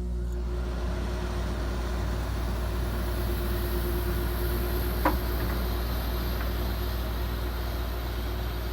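1988 Carrier International Series 12,000 BTU through-the-wall air conditioner running on high cool: a steady rush of fan air over a low hum and a steady tone, with one brief click about five seconds in.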